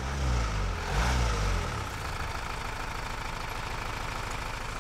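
Car engine revved twice in quick blips, its pitch rising and falling each time, then settling into a steady idle.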